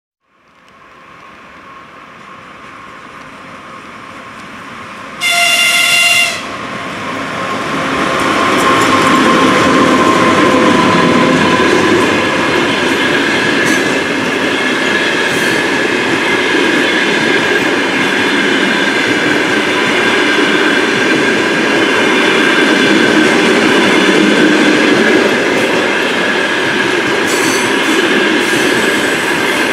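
Passenger train hauled by a ChS8 electric locomotive approaching, with a single horn blast of about a second. Then the locomotive and coaches roll past in a steady rumble of wheels on rail, broken by occasional clacks over the rail joints.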